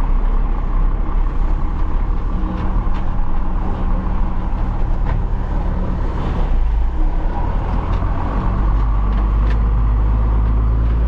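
Pickup truck engine running at low speed, heard from inside the cab as the truck creeps through a parking lot. Its low, steady hum grows stronger about eight seconds in.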